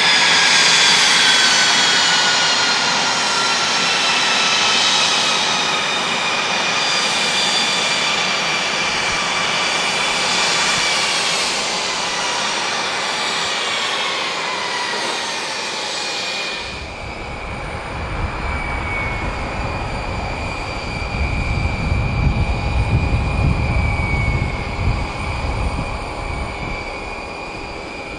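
Beechcraft 400A's twin Pratt & Whitney JT15D turbofans spooling down after shutdown, a whine falling steadily in pitch. About sixteen seconds in the sound changes abruptly to a low rumble with a fainter steady whine.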